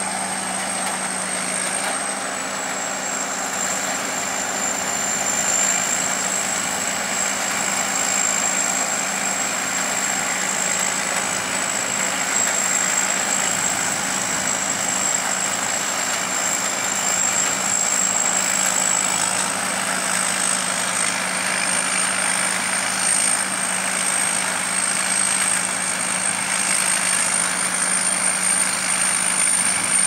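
Sakpattana KM AMT corn combine harvester running steadily while cutting and threshing standing maize. Its engine and threshing machinery make a constant drone with a thin high whine above it, which sags slightly in pitch for a while and then climbs back.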